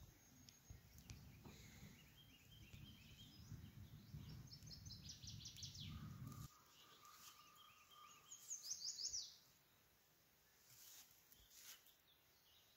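Faint songbirds singing: quick high trills, a short held whistle, and a fast run of falling notes, over a low rumble that stops about halfway through.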